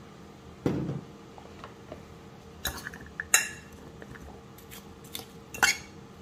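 A dull thump just under a second in, then a metal fork clinking sharply against a glass bowl several times while stirring oiled chunks of butternut squash, carrot and onion. The loudest clink comes a little past the middle.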